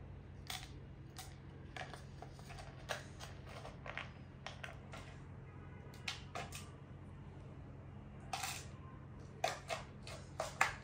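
A small metal spoon clinking and dried cardamom pods rattling and dropping into a plastic jar, in irregular light clicks and taps that come thicker and louder near the end, over a steady low hum.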